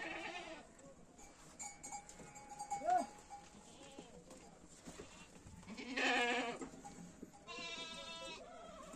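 Goats bleating at intervals: a short call about three seconds in, a loud bleat about six seconds in, then a quavering bleat.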